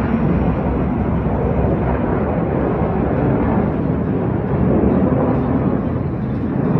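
Jet aircraft of the Black Eagles aerobatic team (T-50B trainers) roaring overhead in a steady rush of engine noise that swells slightly about five seconds in.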